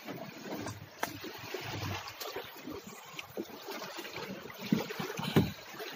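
Water sloshing and splashing, with a couple of sharp knocks, about a second in and again near the end, and wind buffeting the microphone.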